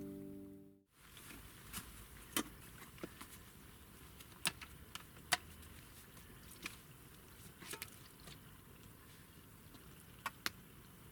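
Background music fading out within the first second. Then a faint steady hiss with scattered sharp clicks and snaps, about nine in all, two close together near the end.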